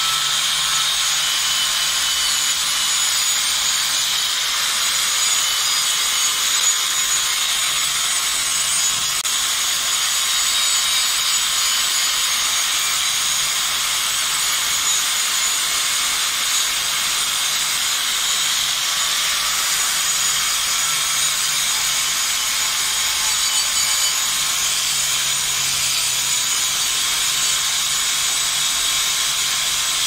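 Angle grinder running a twisted-knot steel wire cup brush against a rusty steel plate: a steady scrubbing hiss as the wires strip the rust back to bare metal.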